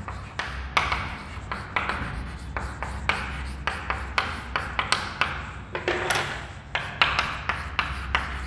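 Chalk writing on a chalkboard: short, irregular scratching and tapping strokes as words are written, over a steady low hum.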